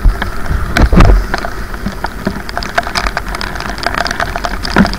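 Heavy rain striking a camera mounted on a moving motorcycle: a dense run of sharp drop taps over a low rumble, with a louder thump about a second in.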